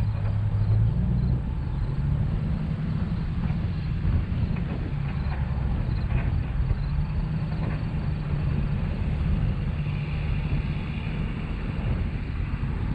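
A vehicle engine running steadily, its pitch stepping up about a second in and then holding with small shifts.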